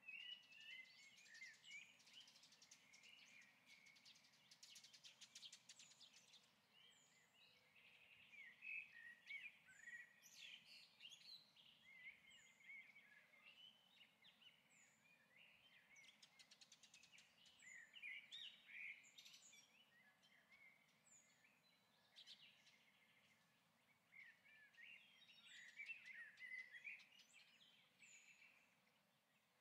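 Faint birds chirping and singing in many short twittering phrases, with a brief high call recurring every second or two.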